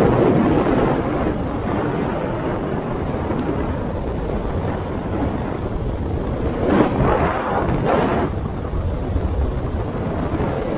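Wind buffeting the action camera's microphone while riding a scooter, with road rumble beneath. Two stronger gusts come about seven and eight seconds in.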